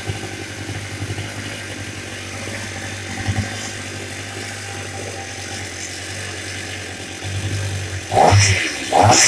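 Two-stroke chainsaw engine idling steadily, then the throttle is opened about seven seconds in and the engine revs twice in quick sweeps near the end.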